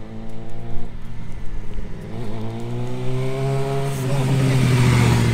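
Motorcycle engines running at low revs. A sport bike ridden slowly approaches and passes close by near the end, its engine growing steadily louder, over the steady idle of a dirt bike beside the microphone.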